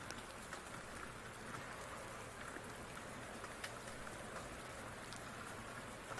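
Steady rain falling, with scattered light ticks of drops or small pops throughout.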